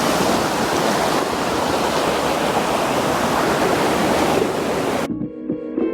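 Waterfall rushing steadily. About five seconds in it cuts off abruptly and background music with a clear melody begins.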